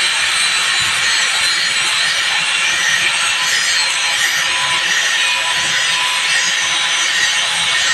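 Handheld electric angle grinder with an abrasive disc grinding a steel katar blade: a steady, loud grinding with a faint whine.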